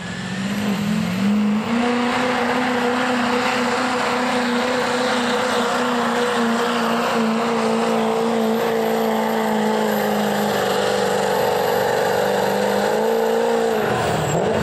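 Modified diesel pickup engine at full throttle, dragging a weight-transfer pulling sled; it holds a steady high rev, then drops off near the end as the pull ends.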